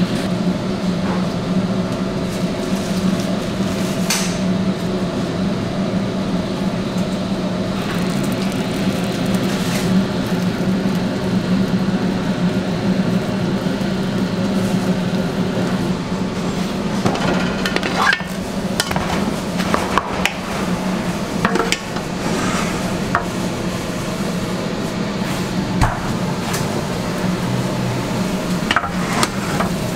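Pizza-kitchen machinery running with a steady low hum, with a few sharp knocks and clinks of metal pans and tools in the second half.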